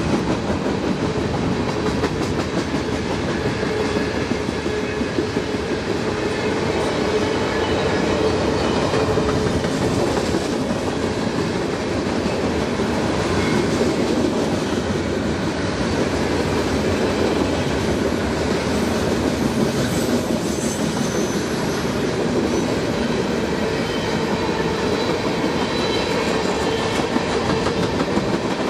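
Freight cars of a CSX freight train rolling past, a steady rumble of steel wheels on rail with clacking over the joints.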